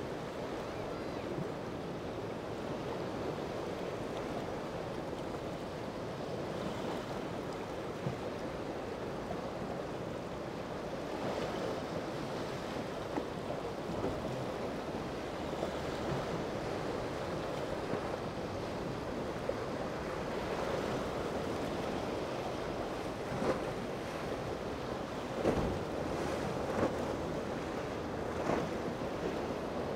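Surf washing and breaking with wind buffeting the microphone, a steady rushing noise; several short louder slaps stand out in the last third.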